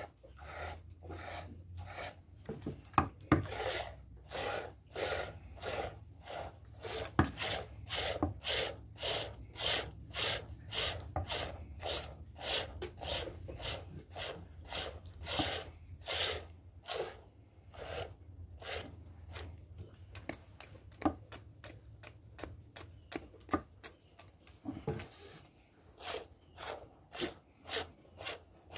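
A goat being hand-milked into a stainless steel bowl: streams of milk squirt into the foaming milk about twice a second, each a short hissing zing. The strokes grow fainter for a few seconds past the middle, then pick up again.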